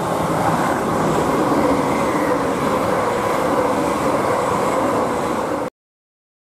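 Departing steam-hauled charter train, its coaches rolling away over curved pointwork with a steady rumble of wheels on rail. The sound cuts off suddenly near the end.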